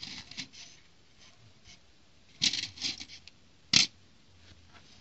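Small plastic building bricks clicking and clattering against each other and a plastic plate as hands pick through them: a few light clicks, a rattling cluster about two and a half seconds in, and one sharp click just before four seconds.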